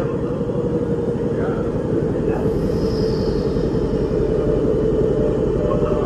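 Milan Metro Line 3 train heard from inside the carriage as it starts away from a station: a steady rumble with a level motor tone, and a second, slightly higher tone coming in near the end as it picks up speed.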